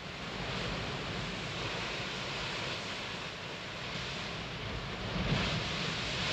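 Ocean surf breaking and washing up the shore: a continuous rush of waves that swells louder about five seconds in and again near the end.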